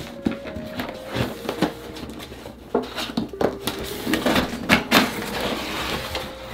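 Unboxing noises from an airsoft rifle's packaging being opened and handled: scattered clicks and knocks with rustling of cardboard and wrapping.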